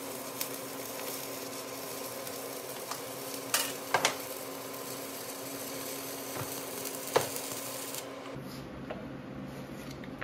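Stick welding arc on a steel tube crackling and sizzling steadily, with a few sharp pops. The arc cuts out about eight seconds in.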